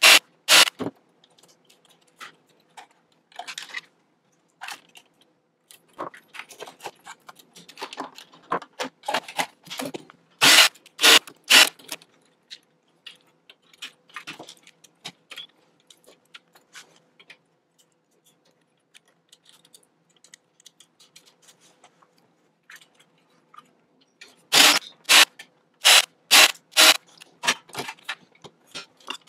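A cordless DeWalt drill/driver in short bursts, backing screws out of a sheet-metal rack case, mixed with clinks and scrapes of screws and metal parts being handled. The noise comes in three clusters of sharp bursts, about a second in, around the middle, and near the end, with quieter clicks in between.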